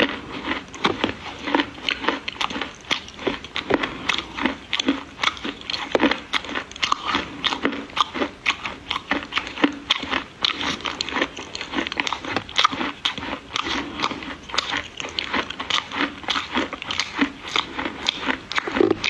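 Dry clay being bitten and chewed close to the microphone: dense, irregular crunching, several crunches a second throughout.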